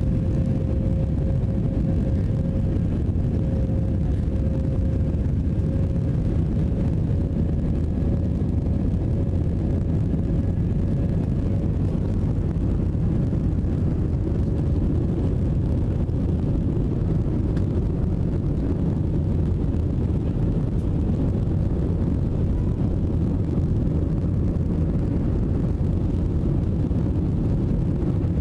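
Airbus A320 cabin noise in the climb after takeoff: a steady rush of engines and airflow, with a droning engine tone that rises slightly in pitch early on and then holds.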